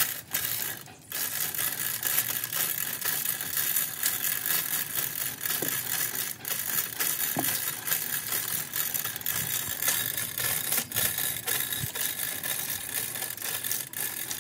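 Manual chain hoist lowering a heavy transformer core-and-coil assembly: the hand chain rattles steadily through the block with continuous fine clicking, starting about a second in.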